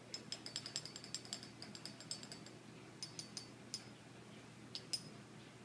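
A quick run of small, sharp clicks with a light ringing note for about two and a half seconds, then a few more clicks in two short groups: small hard objects, such as an ink bottle and pen parts, clinking as they are handled on a desk.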